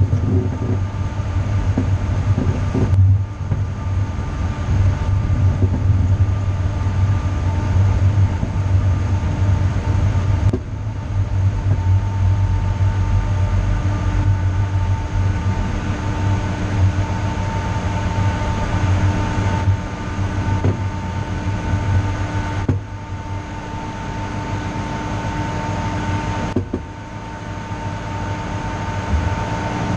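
A vehicle's engine runs steadily while it drives along a street, with road and wind noise. The sound drops off suddenly several times, about 3, 10, 23 and 27 seconds in, then picks up again.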